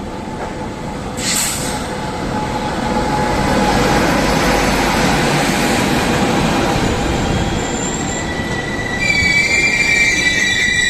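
Passenger train running on the rails, with a short hiss about a second in. From about nine seconds in there is a high-pitched wheel squeal of several steady tones.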